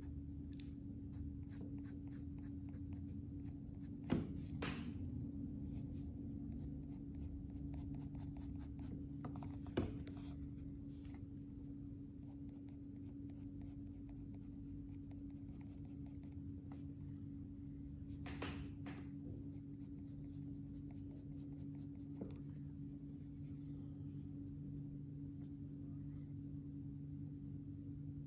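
Graphite pencil scratching across drawing paper in many quick short strokes, over a steady low hum. A few louder clicks stand out, about four, ten and eighteen seconds in.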